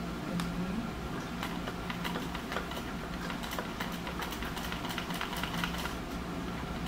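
Industrial straight-stitch sewing machine stitching in short, uneven runs: a steady motor hum with rapid, irregular clicks from the needle and feed, densest through the middle. The fabric is being swung side to side by hand to sew a zigzag on a machine that only sews straight.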